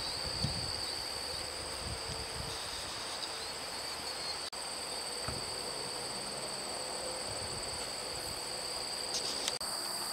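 Summer insects droning steadily in the streamside grass: a continuous high-pitched buzz held on two unbroken tones, with a few faint low knocks underneath.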